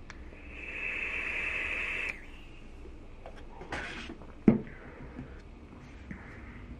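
A vape's dripping atomizer hissing steadily for about two seconds as air is drawn through the coil, then a short breathy exhale of vapour. A sharp knock about four and a half seconds in is the loudest sound.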